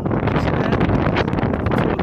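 Wind buffeting the camera's microphone, a loud rushing noise with uneven gusts.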